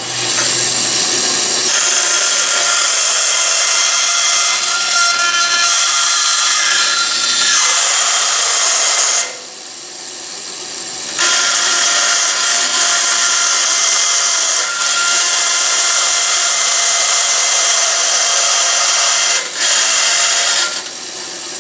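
Grizzly wood-cutting bandsaw cutting thin copper sheet, a loud, steady, mostly high-pitched cutting noise. About nine seconds in the cutting lets up for roughly two seconds and the noise drops, then resumes. It drops again briefly near the end.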